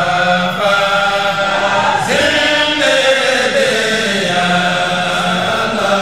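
A group of voices chanting a religious song together, the melody rising and falling over a steady low held note.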